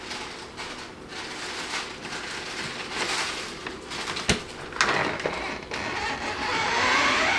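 A door's brass knob is turned and the latch clicks sharply about four seconds in. The door is then pulled open, and the background noise grows louder.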